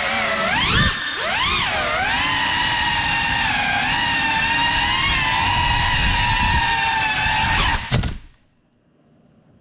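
Brushless motors and props of a Cinelog35 cinewhoop FPV drone whining as a stack of tones whose pitch dips and climbs with the throttle. About eight seconds in there is a knock and the motors cut off suddenly as the drone comes down onto the floor.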